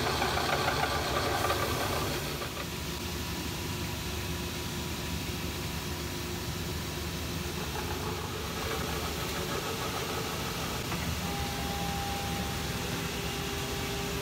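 CNC milling machine running as its end mill notches a GM LS engine block for stroker crankshaft clearance. It gives a steady machining noise that is louder and rougher for about the first two seconds, then settles, with a faint thin whine near the end.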